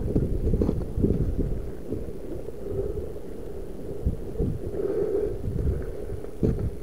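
Low wind rumble on the microphone, with a few faint knocks.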